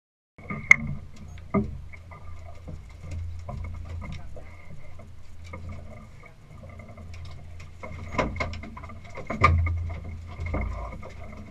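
Sharp knocks and clatter of people and gear moving on a fishing boat's deck, the loudest about a second in and again around nine seconds in. A low steady rumble and a faint steady high whine run underneath.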